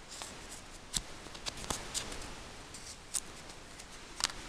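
Small parts being handled on paper: a rubber gasket and small metal switch parts picked up and set down, giving a few light clicks and taps, the sharpest one near the end.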